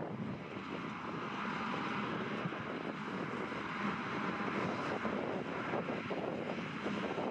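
Claas Jaguar 870 self-propelled forage harvester at work picking up and chopping a grass swath for silage: a continuous, steady drone of its engine and chopping cylinder, mixed with the tractor running alongside.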